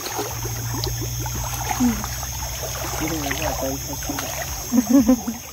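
River water trickling and lapping around a spearfisher standing in it at night, over a steady hiss and low hum. A few brief faint voice sounds come through, loudest near the end.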